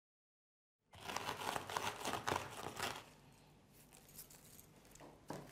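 Fried lentil dumplings (dal bori) crunching and crackling as they are crushed on newspaper, with the paper crinkling under them. It starts about a second in, is densest for the next two seconds, then goes on more quietly with scattered crackles.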